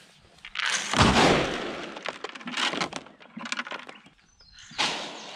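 Feed pellets poured from a container into an empty plastic feed bunk: a sudden rattling rush about a second in that tails off, a scatter of pellets afterwards, and a second pour near the end.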